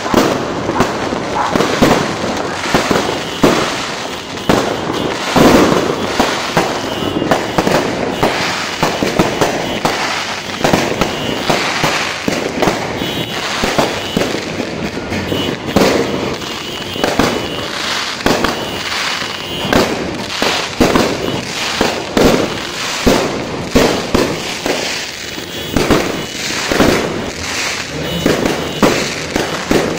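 Fireworks going off non-stop: a dense string of bangs and crackles from aerial shells and firecrackers, one burst after another with hardly a gap.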